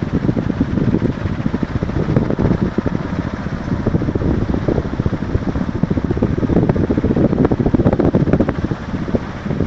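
KDK T56ZX ceiling fan running: a continuous low rush of moving air that swells and dips irregularly.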